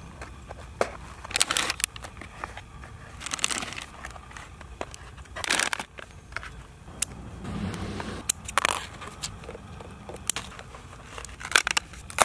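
A clear plastic tackle box being organized by hand: dividers clicking into their slots and plastic bait packaging crinkling, in scattered sharp clicks and short rustles.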